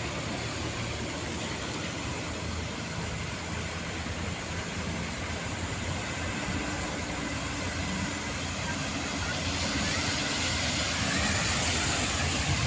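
Heavy diesel haul trucks driving past on a dirt coal-haul road, a steady engine-and-tyre rumble. It grows louder near the end as a truck pulling dump trailers draws close.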